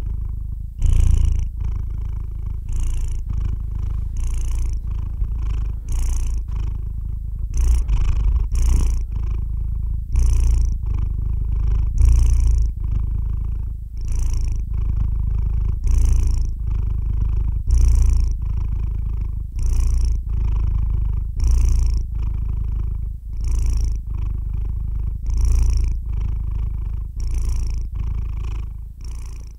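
Sleeping calico cat purring close up: a steady low rumble that swells and eases with each breath, about one breath every two seconds.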